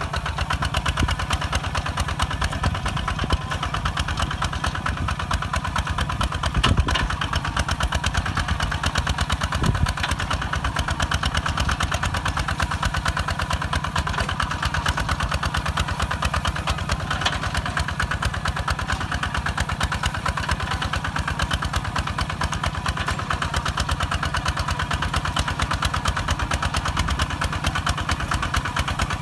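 Kubota ZT 155 DI single-cylinder diesel on a walking tractor running steadily under load, pulling a disc plough through dry soil, with a fast even chugging. One brief louder knock comes about seven seconds in.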